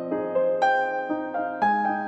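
Background piano music: single notes struck about every half second, each ringing and fading over sustained lower notes.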